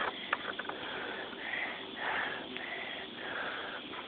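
A person breathing and sniffing close to the microphone, in a string of short hissy breaths. There are a few light clicks in the first second.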